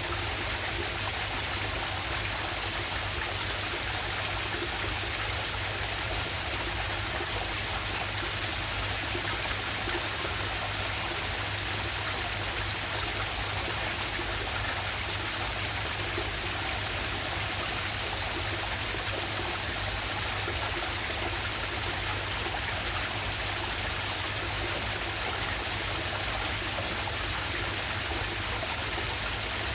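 Waterfall and river water rushing steadily.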